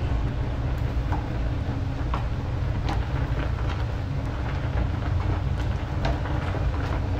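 Steady low rumble from the stovetop, where a large pot of penne is at a rolling boil. A few light knocks sound as a wooden spoon stirs the pasta against the pot.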